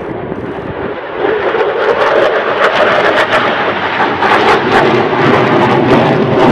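F-22 Raptor's twin Pratt & Whitney F119 turbofans in afterburner as the jet passes. The sound grows louder about a second in and carries a rough, rapid crackle.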